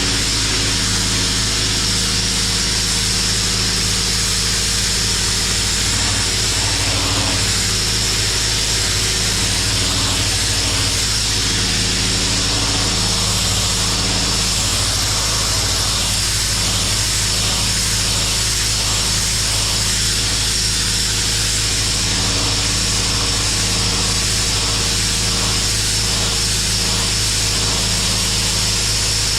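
Pressure washer running steadily: a motor hum under the hiss of a high-pressure water jet blasting concrete.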